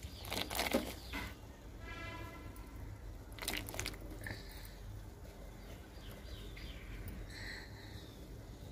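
Handfuls of raw ash gourd cubes dropped into a steel pot of boiling water, faint splashes near the start and again about three and a half seconds in, over a low steady hum.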